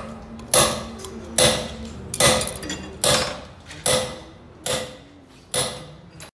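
Metal being struck: seven sharp, evenly spaced taps, one a little under every second, each ringing briefly before it fades.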